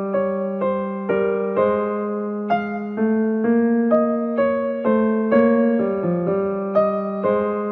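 Background music: an electric piano playing a steady run of single notes, about three a second, over a held low note.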